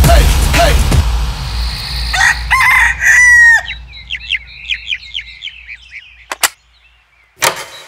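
Cartoon rooster crowing once, a held cock-a-doodle-doo, followed by a quick run of short high clucking calls. Music dies away before it, and a single sharp click comes near the end.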